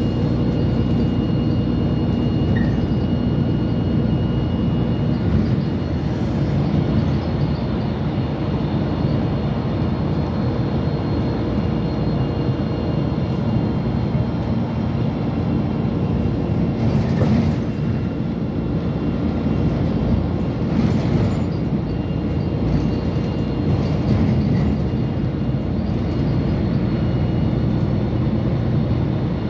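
Metro train running at speed, heard from inside the car: a steady low rumble of wheels on rails, with a few faint steady high tones over it and brief swells now and then.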